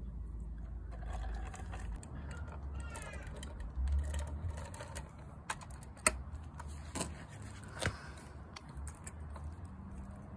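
Light clicks and taps of a model garbage truck and small plastic toy bins being handled on concrete, with a few sharper clicks in the second half.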